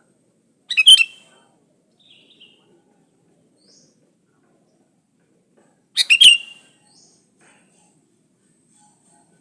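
Sooty-headed bulbul (kutilang) giving two short, loud call phrases about five seconds apart, with a few faint chirps between them.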